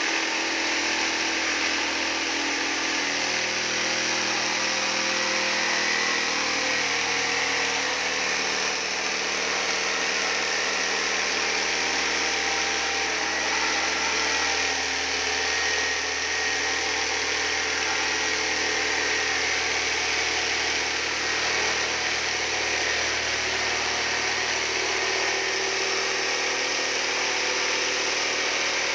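Corded electric jigsaw running without a pause, its blade cutting along a wooden board.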